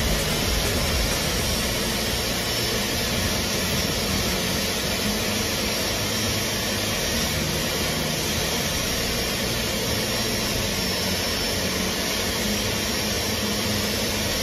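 Rolls-Royce Trent XWB turbofan running steadily: an even rushing noise with a faint high whine.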